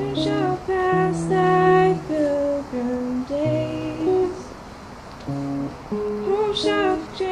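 Acoustic guitar played live, with a voice singing a slow melody of long held notes.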